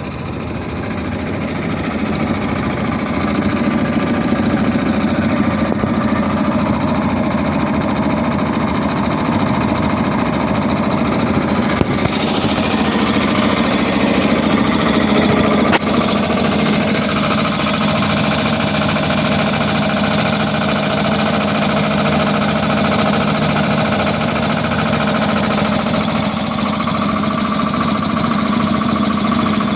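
3 HP Puma 3065 air compressor running steadily as it pumps up its tank. A high hiss joins about twelve seconds in and grows fuller after a sharp click a few seconds later.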